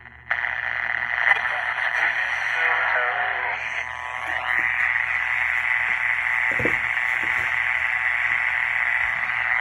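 Zenith Royal 20 transistor radio playing through its small speaker, now working after its corroded battery terminals were cleaned: thin AM reception with static and whistles that glide in pitch, and a broadcast voice faintly underneath. The sound comes on suddenly just after the start.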